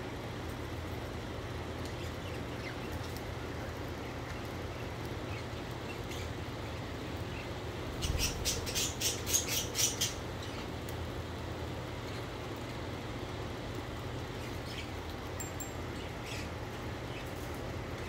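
Budgerigar giving a quick run of sharp high chirps, about five a second for two seconds, roughly halfway through, over a steady low hum, with a few faint chirps before and after.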